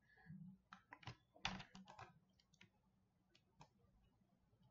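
Faint clicks of computer keyboard keys as code is copied and pasted: a scattered handful of short taps, most of them in the first two seconds and a few more later.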